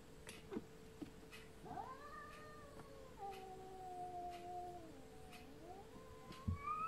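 Sphynx cat yowling: one long drawn-out call that wavers and then drops in pitch, followed near the end by a second rising yowl. A short thump near the end.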